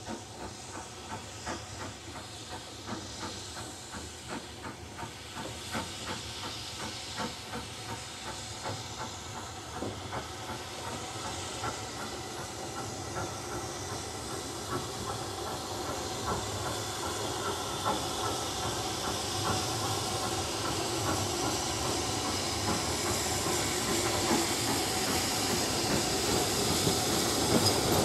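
BR Standard 5 class 4-6-0 steam locomotive No.73082 approaching with its train, steam hissing over a quick regular beat, growing steadily louder as it draws near and passes close by.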